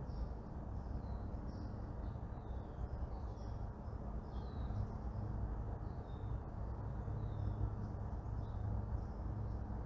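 Morning neighbourhood ambience: birds chirping again and again in short, high, falling notes over a steady low rumble of distant traffic.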